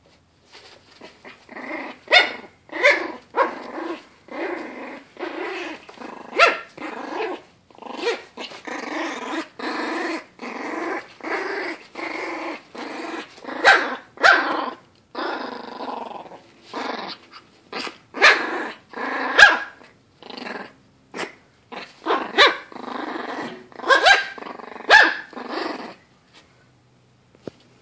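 Puppy play-growling while mauling a plush toy: a long run of short growls broken again and again by sharp, louder yaps.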